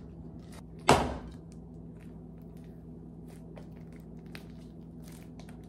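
One sharp knock about a second in, then faint soft clicks and squelches as homemade slime of glue, contact solution and shaving cream is stirred in a plastic bowl and kneaded by hand, over a steady low hum.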